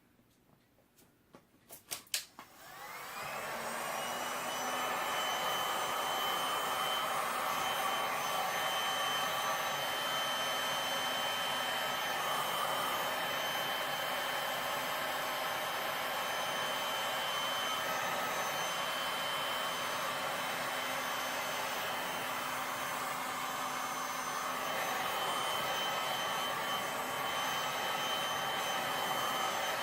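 Electric hot-air blower switched on with a few clicks about two seconds in, spinning up with a short rising whine, then running steadily with a whine over the rush of air. It is blowing over fresh resin to warm it and clear bubbles.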